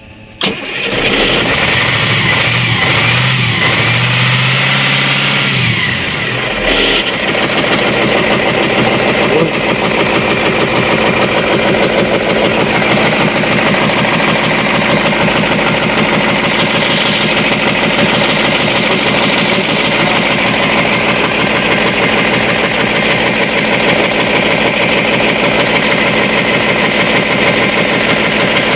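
Caterpillar 3208 V8 marine diesel starting: it fires right at the start, runs rough and lumpy for the first several seconds, then settles into a steady run. It is the first start after the fuel injection pump's stuck plungers and barrels were freed, on an engine that had not run for a long time.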